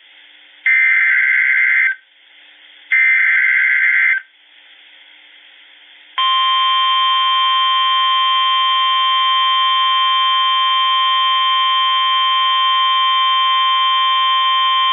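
Emergency Alert System signal: two harsh, buzzing digital SAME header bursts about a second apart, then about six seconds in a steady, loud single-pitch alert tone that holds for about nine seconds. It opens a new severe thunderstorm warning.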